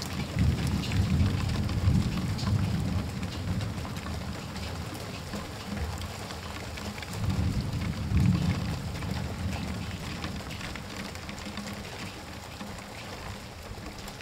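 Heavy rain falling, with drops ticking close by, under two low rolls of thunder: one in the first few seconds and another about eight seconds in.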